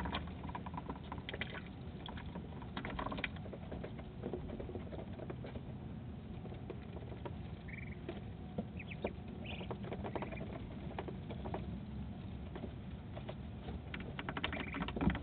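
Scattered faint clicks and rustling over a steady low hum, with a few short high chirps about 8 to 10 seconds in and a brief flurry of clicks near the end.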